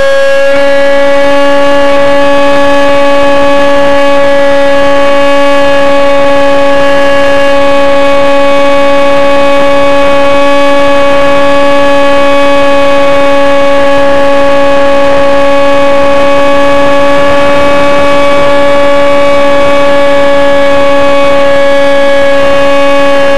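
Slow Flyer 1400 RC plane's motor and propeller, heard close up from the camera on the airframe, running at full power on the climb-out: a loud, steady whine that holds one pitch.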